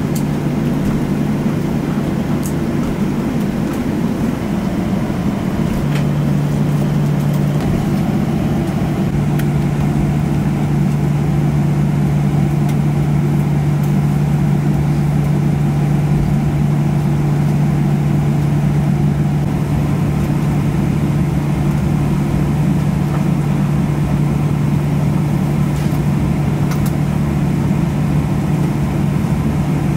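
Cabin noise inside a Boeing 737-900ER: a steady low hum from the CFM56-7B jet engines and the cabin air system, growing slightly louder a few seconds in.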